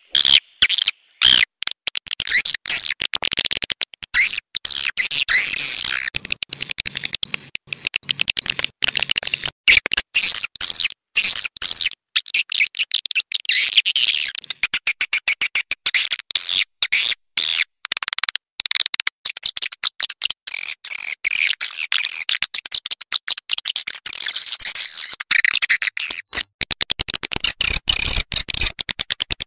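Swiftlet call-sound recording, as played through tweeters to lure swiftlets into a nesting house: dense, rapid high-pitched twittering and clicking chirps, broken by many short gaps.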